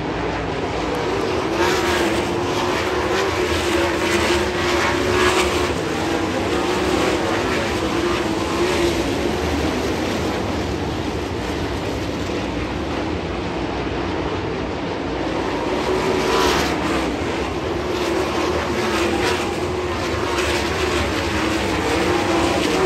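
A pack of winged dirt-track sprint cars racing around the track, their V8 engines running hard in a steady drone that swells as the field passes, about two to five seconds in and again about sixteen seconds in.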